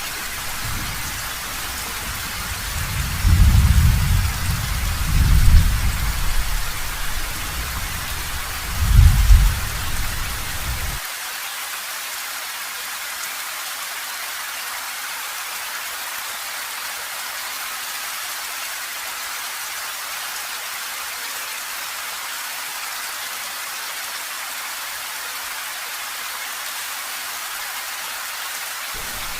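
Heavy rain falling steadily. For about the first ten seconds it comes with low rolling thunder that swells three times. The rumble then cuts off abruptly, leaving only the rain.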